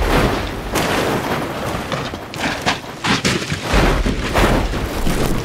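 A car with a roll cage tumbling down a steep dirt slope: a rapid, irregular series of heavy crashes and thuds as the body and cage slam into the ground, with dirt and gravel scraping in between.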